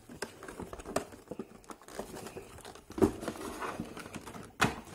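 Clear plastic packaging crinkling and rustling as a boxed figure is pulled out of its plastic insert, with scattered sharp snaps, the loudest about three seconds in and just before the end.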